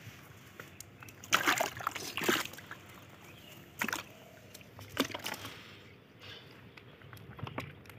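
Wet cast net and flapping fish being handled on the ground: a few short splashy slaps and rustles, about four of them, with small clicks in between.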